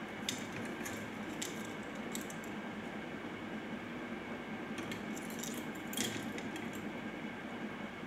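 Light, sharp clicks and taps from a rose-ringed (Indian ringneck) parakeet's beak and feet on its perch: a few in the first two seconds and a denser run from about five to seven seconds in, over a steady background hum.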